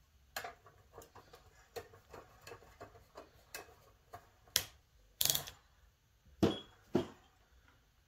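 A run of small, irregular clicks and taps, with a few louder clacks between about four and a half and seven seconds in, from hands handling parts at the end of a quartz heater's metal reflector housing.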